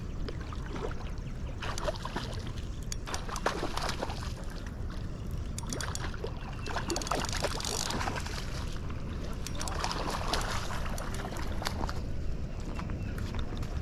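Water splashing in several short spells, with scattered clicks and knocks, over a steady low rumble of wind on the microphone.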